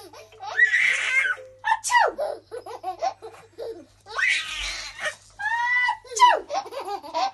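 Two sneezes, about a second in and just after four seconds, each answered by repeated bursts of high-pitched laughter.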